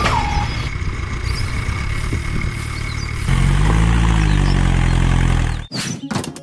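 Engine running with a steady low rumble that grows louder about three seconds in, then cuts off abruptly near the end.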